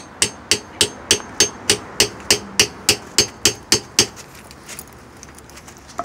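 Claw hammer beating a steel rod into a pilot bearing's bore, which is packed with candle wax. There are about fourteen even blows, roughly three and a half a second, each with a short metallic ring, and they stop about four seconds in. Each blow compresses the wax behind the bearing to force it out of its seat.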